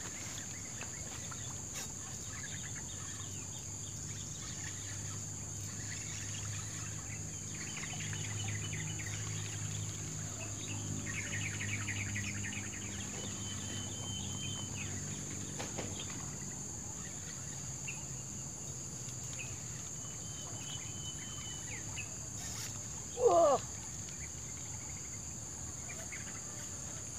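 Outdoor insect chorus: a steady high-pitched drone with short chirps over it. A faint low hum swells and fades in the middle, and a single short loud sound cuts in near the end.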